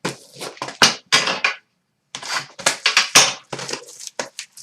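Trading card box and foil packs being torn open and handled: a string of short crinkling, tearing rustles with a brief pause about two seconds in.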